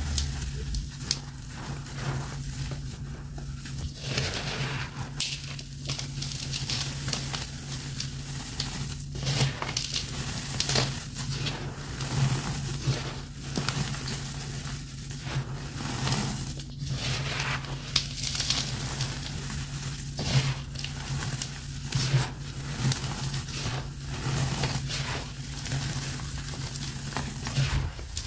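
Dry, crumbly powder and soft chunks crushed and rubbed between bare hands over a bowl, with irregular soft crunches and a steady hiss of powder sifting down.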